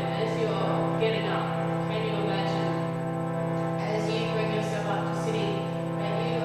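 Music: a chant sung over a steady held drone note, with the voice moving above the unchanging drone.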